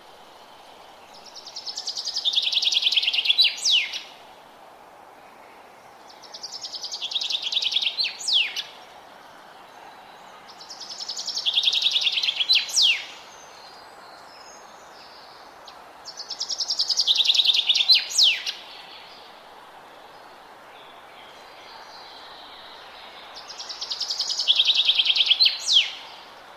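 A forest songbird singing the same song five times, about every five seconds: each song is a rapid trill that drops in pitch and ends with a sharp, high flourish. A steady low background hiss runs underneath.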